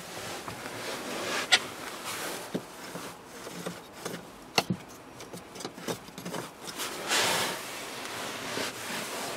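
Scattered small plastic clicks and rustling handling noise as a hand turns the round passenger air vent on a 2013 Nissan Note's dashboard. A brief louder rustle comes about seven seconds in.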